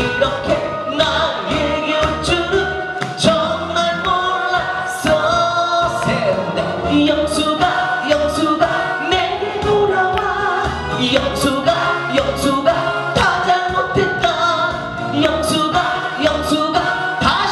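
A man singing a Korean song into a handheld microphone over a recorded backing track with a steady beat.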